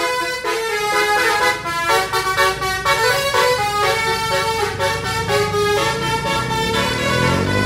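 Indonesian bus 'telolet' horn, a multi-tone musical air horn, playing a tune of changing notes. Near the end the bus engine revs up in a rising drone.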